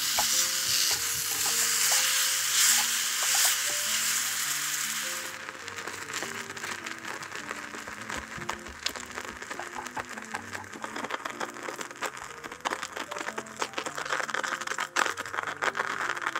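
Strawberries and sugar cooking in a saucepan over a gas flame, stirred with a silicone spatula. A loud even hiss for about the first five seconds cuts off abruptly, giving way to crackling pops and soft bubbling as the fruit simmers down to a compote.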